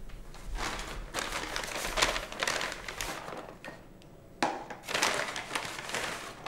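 Brown paper bag and a plastic snack bag crinkling and rustling as they are handled and items are pulled out. It comes in two irregular spells, with a short pause a little before the four-second mark.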